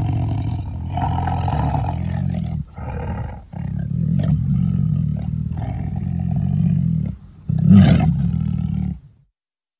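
Tiger roaring: a run of deep roars with brief breaks between them, the loudest near the end, cutting off suddenly about nine seconds in.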